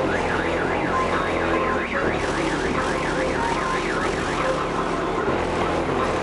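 Car audio subwoofers playing continuous loud low bass tones in an SPL bass race. Over the first five seconds a warbling siren-like tone rises and falls about twice a second.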